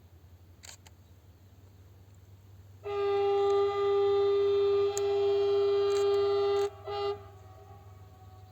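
Horn of Adif's VUR 606 ultrasonic rail-inspection vehicle: one long single-note blast of about four seconds, then a short blast.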